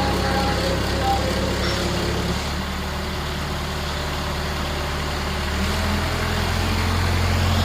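A large engine running steadily, its pitch dropping about two and a half seconds in and rising again near the end.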